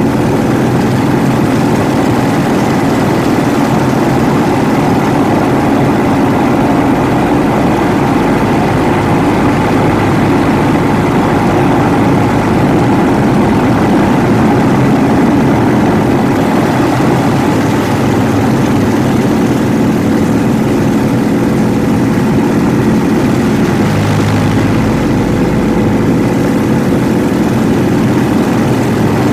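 Yak-52's nine-cylinder radial engine and propeller running steadily at power during aerobatic flight, with a brief change in the low rumble near the end.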